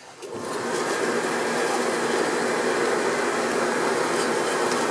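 Hair dryer used as the blower of a coal forge, coming up to speed over about the first second and then running steadily, forcing air through a vacuum cleaner hose into the burning coal. The result is a steady rushing noise with a faint motor whir.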